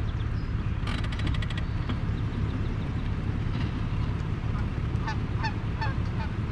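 Geese honking several times near the end, over the steady low rumble of an idling vehicle engine. A brief, rapid rattle sounds about a second in.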